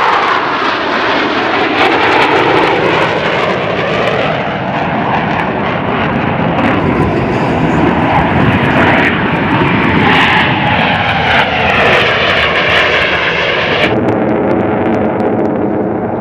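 Loud jet engine noise from F/A-18 fighter jets flying past in formation, with slow sweeps up and down in pitch as they pass. About two seconds before the end the sound changes abruptly to a steadier jet sound with a fixed whine.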